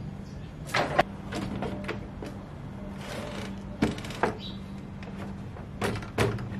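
Wood and metal handling on an idle table saw: a wooden workpiece knocked and slid on the metal saw table, with a few sharp clicks and rattles as the setup is adjusted, over a steady low hum.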